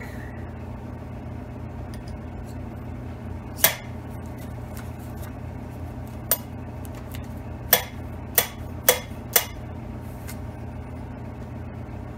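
Sharp metallic clinks as an intake valve is set and tapped against its freshly ground seat in a tractor engine's cylinder head: one clink, then another, then four in quick succession near the end. A steady low hum sits underneath.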